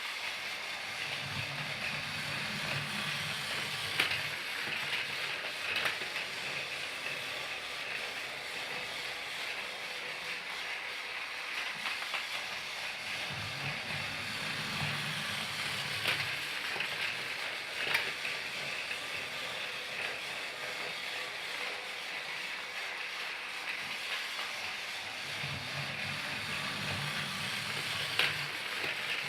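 Thomas the Tank Engine toy train running, with a steady hiss and scattered sharp clicks. A low hum swells three times, about every twelve seconds.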